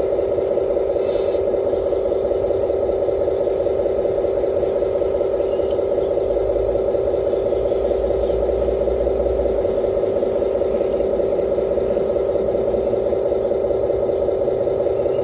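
Radio-controlled model Liebherr 946 excavator running, a steady mechanical hum, as it swings and digs its bucket into gravel.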